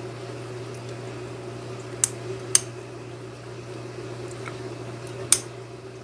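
Metal servo brackets being fitted together by hand, giving three sharp clicks: two about two seconds in, half a second apart, and one near the end. A steady low hum runs underneath.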